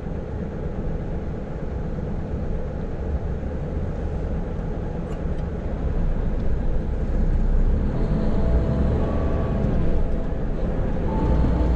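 Engine and road noise inside the cab of a Hino tractor-trailer truck on the move, a steady low rumble that grows louder about halfway through, with a faint whine in the later part.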